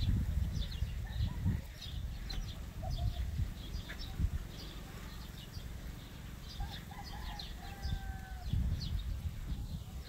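Birds calling: many short high chirps all through, with a few longer, lower drawn-out calls around the middle. An uneven low rumble runs underneath, strongest at the start and near the end.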